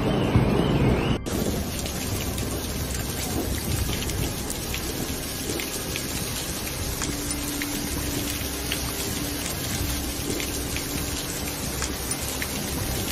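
Heavy rain pouring down, a steady dense hiss of drops striking surfaces with many small sharp ticks, starting abruptly about a second in.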